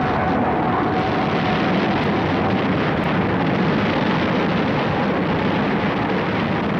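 Steady roar of a jet strike aircraft in flight: a loud, even rushing noise that holds level throughout.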